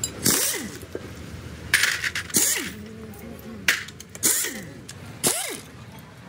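About six short, irregularly spaced metallic scrapes and clinks from hand work on a metal part.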